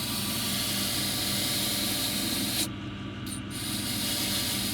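Freshly cut Mercedes Vito emergency key blade held against a spinning finishing wheel to clean it up: a steady hissing rasp over the wheel motor's hum, which stops for a moment about two-thirds through and then starts again.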